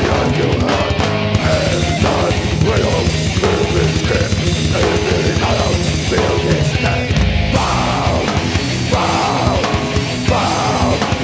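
Live heavy metal band playing distorted guitars over fast, dense drumming.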